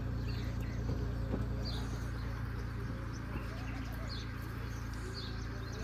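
Maruti Suzuki Wagon R's engine running with a steady low hum as the car creeps slowly forward. A bird gives short high chirps every second or so.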